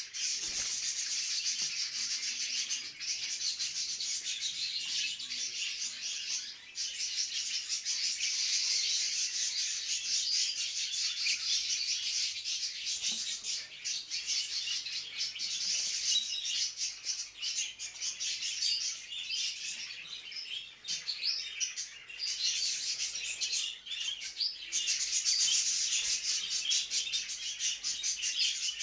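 A flock of budgerigars chattering and warbling together in a continuous, high-pitched, scratchy din with a few brief lulls: the breeding-season chatter of budgies.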